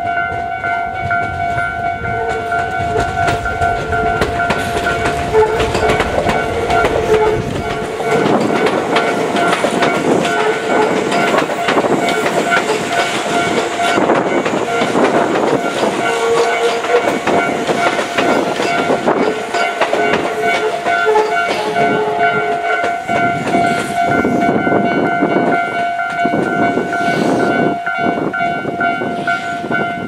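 Japanese level-crossing warning bell ringing on and on in a rapid, even ding, while Tobu electric commuter trains run past with a rumble and the clatter of wheels over rail joints.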